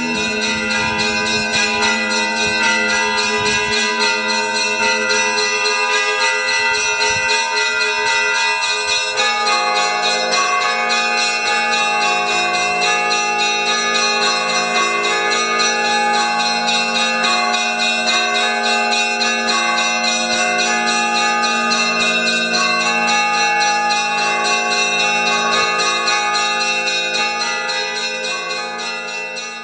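Orthodox monastery bells ringing a continuous peal, several small bells struck in quick, steady succession. A deeper bell joins about nine seconds in, and the ringing fades out near the end.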